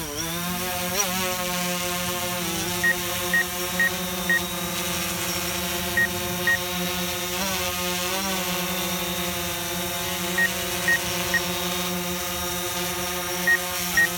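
White DJI Phantom quadcopter hovering low, its propellers giving a steady buzzing hum whose pitch wavers briefly a few times as the motors adjust. Short high beeps sound in runs of two to four, about half a second apart.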